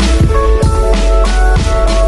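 Background music with a steady drum beat, deep bass and held keyboard notes.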